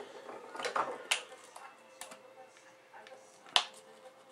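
Handling noise: a few scattered clicks and knocks as a 1/10-scale ECX Ruckus RC truck's plastic chassis is gripped and moved on a wooden table, the sharpest about three and a half seconds in.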